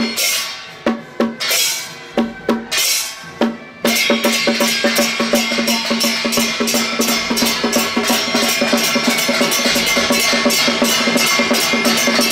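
Percussion music of a temple procession, drums with cymbals. A few spaced strokes with ringing cymbal washes come first, then about four seconds in a fast, continuous drum rhythm sets in, with a steady held tone beneath it.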